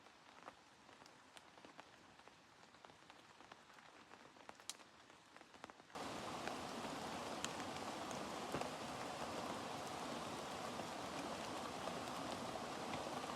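Rain falling: light, with scattered drips, for the first six seconds, then an abrupt switch to steady heavy rain with drops pattering on a surface.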